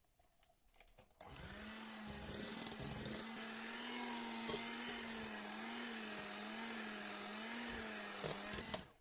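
Electric kitchen mixer switched on about a second in and run steadily, its motor hum wavering a little in pitch as the beaters work, then switched off just before the end.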